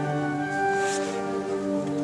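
Tornaghi pipe organ playing held chords, several sustained notes sounding together and moving to new notes every half second or so.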